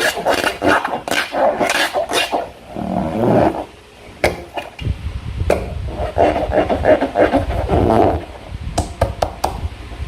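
Slime being squeezed and worked by hand, giving irregular wet squelches with sharp little clicks and pops. A low rumble of handling noise joins about halfway through.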